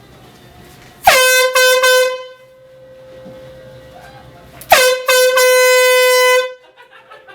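Air horn rigged to a chair, blasting twice: a short blast of about a second, then a longer one of nearly two seconds, one steady high tone that dies away faintly near the end.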